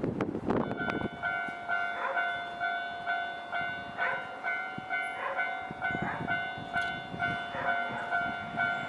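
Level-crossing warning bell starts ringing about half a second in, after a short rush of noise, and keeps a steady beat of about two strokes a second: the crossing is signalling that a train is approaching.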